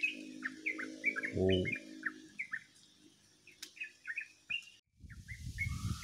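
Burung pucuk, a small songbird, singing a fast run of short, clipped chirps, several a second. The song breaks off abruptly about five seconds in.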